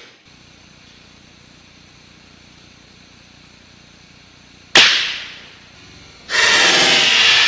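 A single shot from a .22 CZ Brno rifle, one sharp report about five seconds in that dies away over about a second. Loud music starts abruptly near the end.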